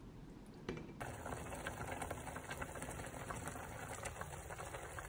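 Pot of gukbap (pork and sundae soup) heating on the stove, a steady dense crackle of small bubbles that starts about a second in.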